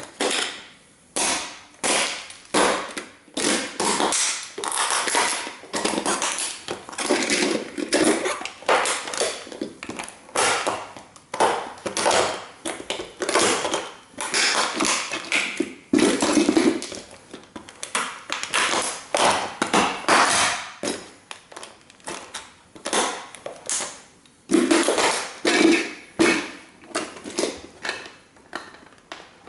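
A 1:18 scale model toy car being stomped and crushed under sneakers: repeated irregular crunching, cracking and snapping of its parts.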